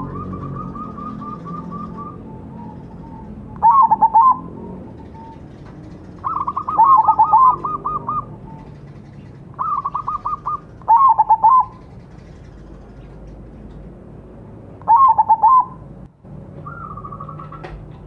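Crossbred zebra dove (perkutut) cooing: about six phrases of quick, staccato repeated notes, each lasting half a second to two seconds, with short pauses between them.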